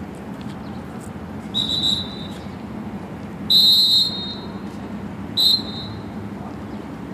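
A whistle blown in three short blasts, one high steady note each, the middle blast the longest, over a steady low background rumble.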